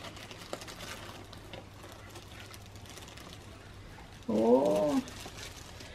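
Faint crinkling of clear plastic wrap as a boxed plaque is lifted out and handled, then about four seconds in a woman's short wordless exclamation.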